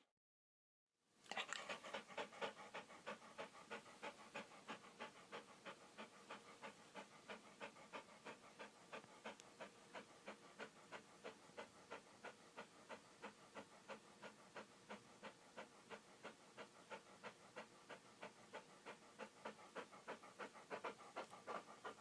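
Dog panting rapidly, an even rhythm of about four pants a second, starting about a second in after a brief silence.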